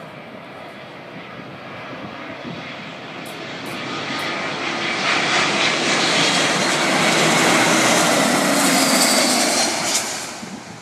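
Airbus A320 jet engines roaring as the airliner passes close by. The roar grows louder over several seconds, with a faint low tone sliding down as it goes past, then fades quickly near the end.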